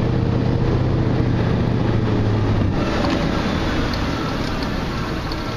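Vehicle running, with road and wind noise and a steady low engine hum that stops about halfway through.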